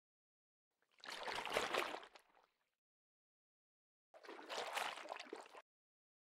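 Water splash sound effect: two separate bursts of splashing water, each about a second and a half long, with dead silence between them. The second burst cuts off abruptly.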